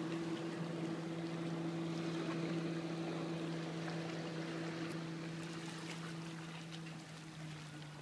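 Motorboat engine humming steadily at one pitch over a rush of water. It slowly fades toward the end.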